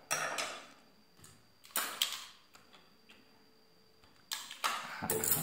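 Handling noise from a small circuit board and its attached wires being moved in the hand: a few short scraping clicks and rustles, about four separate bursts.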